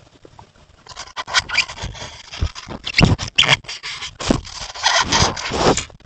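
A Roosevelt elk rubbing its face against a trail camera, its fur scraping over the camera housing right at the microphone: loud, irregular scratching strokes that begin about a second in.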